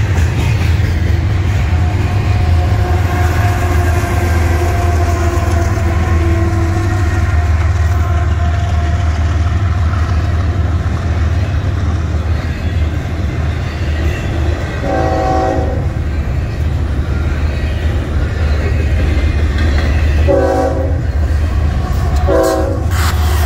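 Double-stack intermodal freight train passing close by, a steady heavy rumble with wheel clatter. About 15 s in, an oncoming diesel locomotive's multi-note horn sounds three blasts, the first about a second long and the last the shortest, a warning for the grade crossing.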